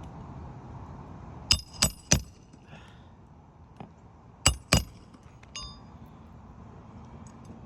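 Hammer striking a metal snake tool to drive a roofing nail under a shingle: three sharp metallic strikes that ring, then two more about three seconds later, followed by a lighter clink.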